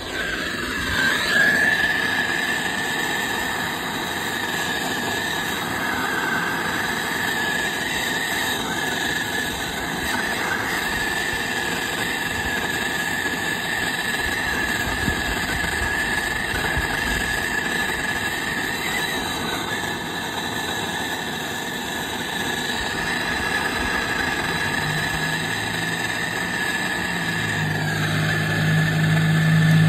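Hand-held gas torch burning steadily against a copper pipe fitting, heating the joint for soldering: a steady flame hiss with a whistling tone that starts about a second in and drops in pitch near the end. A low hum joins in the last few seconds.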